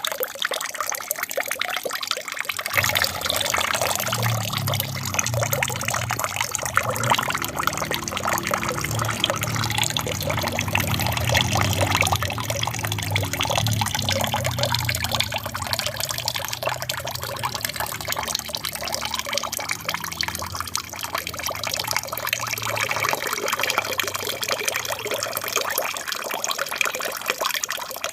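Water trickling and splashing steadily down an aquarium waterfall. A low rumble joins about three seconds in and fades away near the end.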